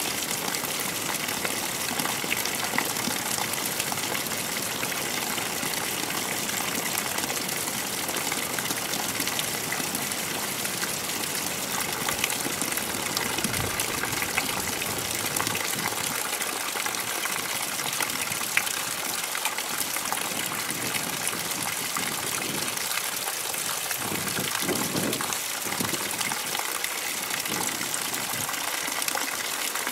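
Rushing water of a mountain river, a steady, even wash of noise.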